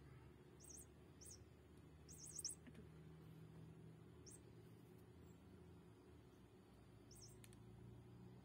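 Faint bird chirping: about five short clusters of high chirps spread unevenly over a few seconds, over a low steady hum.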